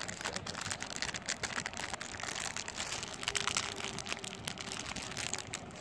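Clear plastic bag crinkling and rustling continuously as a hand rummages through jewellery packed inside it.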